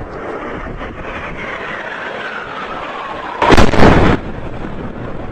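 A whine falling steadily in pitch over wind noise, then about three and a half seconds in a single loud explosion lasting under a second: an airstrike bomb hitting.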